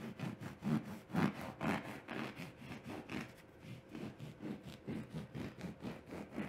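Knife sawing back and forth down through a loaf of low-carb bread with a firm crust, a steady run of rasping strokes at about three a second.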